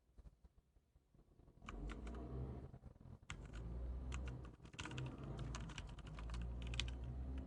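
Typing on a Z-88 backlit keyboard: a few faint clicks, then fast, continuous keystrokes from about a second and a half in.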